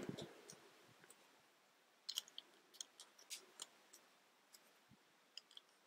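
Faint small clicks of plastic Mega Bloks building pieces being handled and pressed together, a dozen or so scattered clicks starting about two seconds in.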